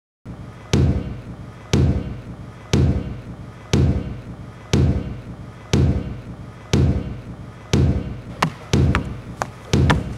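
Slow, steady drum beat: a heavy thud with a sharp click about once a second, with quicker, lighter clicks joining in near the end.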